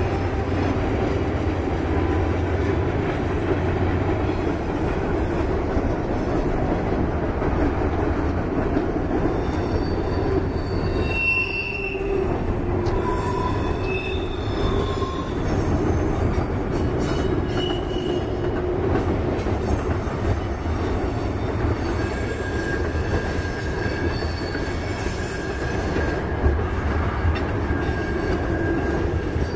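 CSX diesel freight train passing: the locomotives' engines rumble at first, then the freight cars roll by with a continuous rumble. Wheels squeal in short high tones partway through and in a steady high squeal over the last third.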